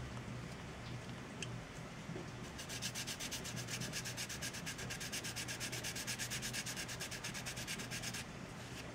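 Sanding stick rubbed over a plastic scale-model part to take down excess material. At first there are a few light scratches, then from about three seconds in comes a fast, even run of back-and-forth strokes that stops shortly before the end.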